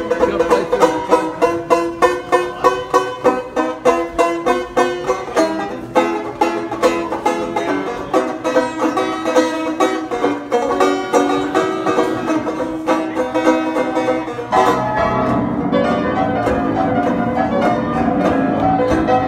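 Banjo picking a lively tune with a quick, even beat. About fourteen seconds in, an upright piano joins with fuller chords underneath.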